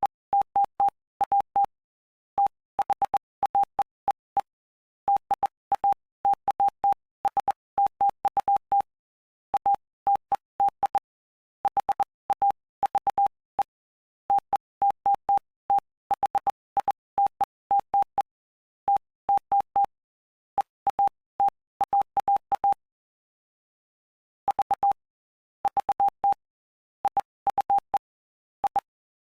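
Morse code sent as a single steady beep tone, keyed on and off in short dots and longer dashes with silent gaps between letters and words, spelling out the text of Mark chapter 8. There is a pause of over a second about three-quarters of the way through.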